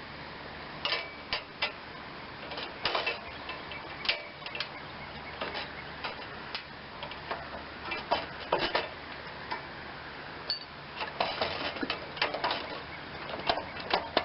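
Socket ratchet clicking in short runs as a long starter mounting bolt is backed out, with occasional clinks of metal tools.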